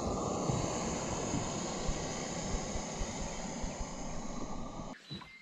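Gas canister camp stove burning under a pot, a steady hiss that stops abruptly near the end.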